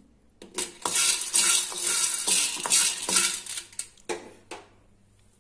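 Wooden spatula stirring dry whole chickpeas in a metal kadai: the hard grains scrape and rattle against the pan in a busy run of strokes for about two and a half seconds, then a couple more strokes near the end.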